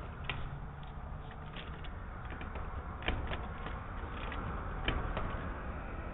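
Outdoor background sound picked up by a doorbell camera's microphone: a steady low rumble with scattered light clicks and taps.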